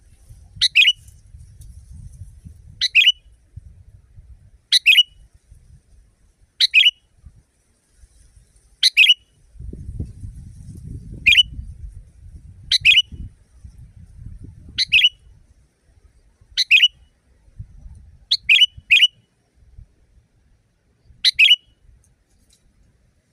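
Sooty-headed bulbul repeating a short, sharp call about every two seconds, twice in quick succession near the end, over a faint low rumble.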